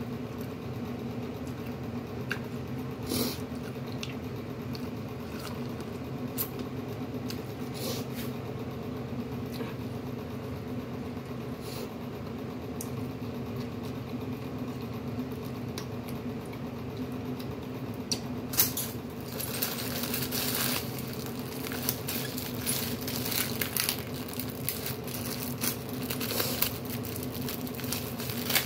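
Quiet eating sounds, chewing corn on the cob and licking fingers, heard as scattered small mouth clicks over a steady low hum. From about two-thirds of the way in, a plastic bag crinkles and rustles in the hands.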